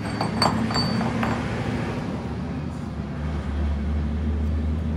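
Steady low machine hum with several short metallic clinks in the first second or so; the hum grows heavier about three seconds in.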